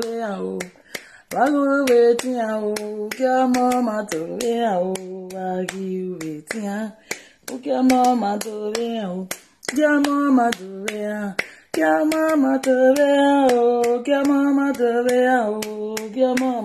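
A woman singing unaccompanied in long held notes, keeping a steady beat with her hands.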